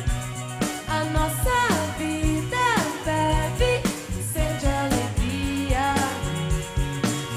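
Band music from a pop-rock ballad with no sung lyrics: a steady drum beat under a melody that slides down in pitch again and again.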